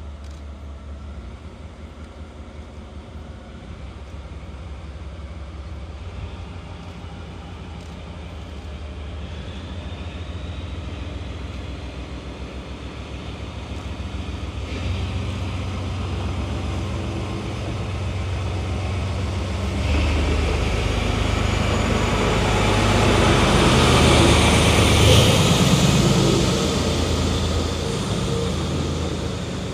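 A DE11 diesel-hydraulic locomotive hauls a train toward the listener, its diesel engine a steady low rumble that grows louder. The sound steps up about fifteen and again twenty seconds in, as the noise of wheels on rails joins the engine. It peaks around twenty-five seconds in as the train passes, then eases slightly.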